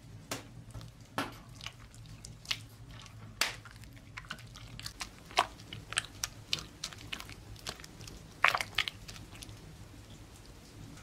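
A bare hand squishing and squeezing creamed butter, sugar and raw eggs in a ceramic bowl: irregular wet squelches and smacks, loudest a little past the middle.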